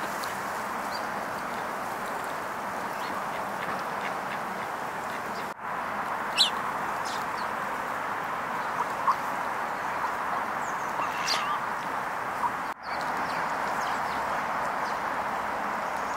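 Steady outdoor hiss with a few short, soft calls from a female gadwall duck, mostly in the middle of the stretch. The sound cuts out for an instant twice.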